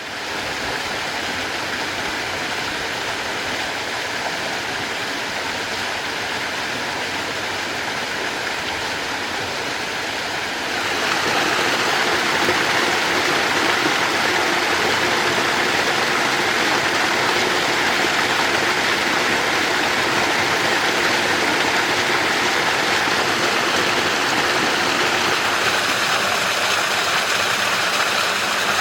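Clear mountain stream rushing between rocks in a steady, even flow. About eleven seconds in it becomes louder and brighter.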